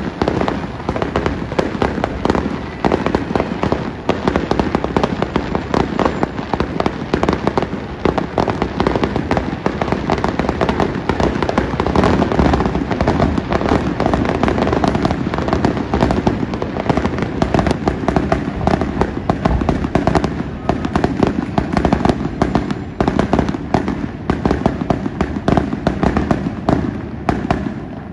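Fireworks barrage: a dense, nonstop run of rapid cracks and bangs that thins out and stops near the end.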